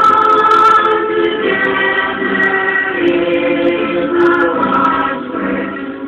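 A choir singing held chords that shift every second or so.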